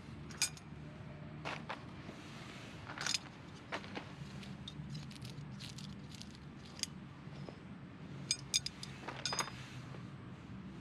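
Camp gear being unpacked and assembled by hand: a mesh drawstring bag is worked open, then blue pole sections are clicked together and fitted into a round disc top, giving scattered light clicks and clinks, with a cluster of them near the end. A steady low hum sits underneath.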